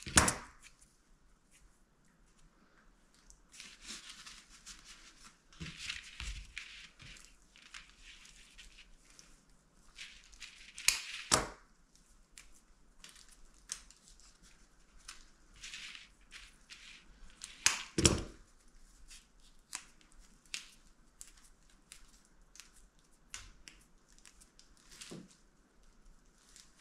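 Craft materials being handled: on and off rustling and crinkling, with three louder sharp snaps, one just after the start, one about 11 seconds in and one about 18 seconds in.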